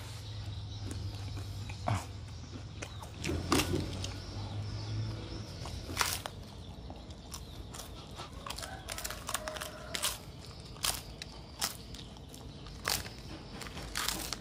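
Scattered sharp clicks and taps of cooking utensils at a crepe griddle, over a low hum that fades out about five seconds in.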